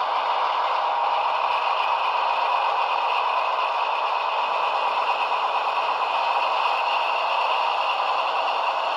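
Model diesel locomotive's DCC sound decoder playing a steady diesel engine sound through a small loudspeaker, thin and without bass.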